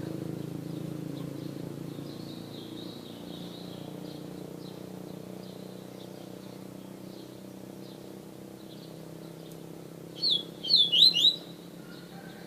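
Caged songbird giving faint scattered chirps, then a loud burst of quick, sharp descending notes near the end. A low steady hum runs underneath and slowly fades.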